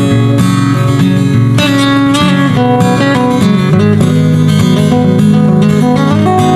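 Background music: strummed acoustic guitar with a steady beat, in a country style.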